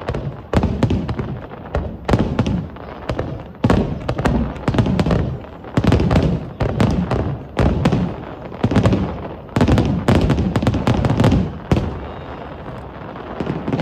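Aerial fireworks: a rapid barrage of senrin-giku (thousand-ring chrysanthemum) shells bursting, with loud sharp bangs about one to two a second, each followed by a rolling low rumble and clusters of smaller pops.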